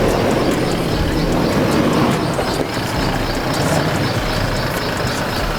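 A vehicle engine running steadily, with a dense rumble and no clear changes in pitch.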